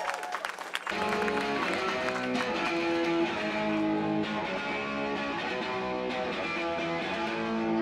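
Rock band playing live, with electric guitar, bass guitar and drums. The full band comes in together about a second in and plays steadily from there.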